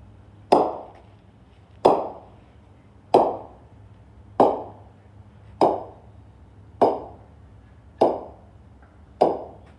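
Two bowling balls hanging on wire ropes knocking together again and again as they swing back and forth. Each collision is a sharp clack with a brief ring, eight in all, about one every 1.2 seconds.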